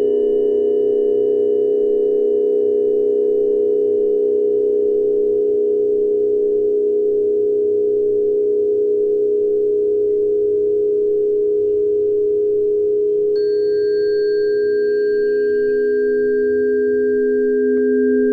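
Steady meditation drone of sustained pure tones layered around 417 Hz, the Solfeggio frequency. About thirteen seconds in, a higher ringing tone joins and holds.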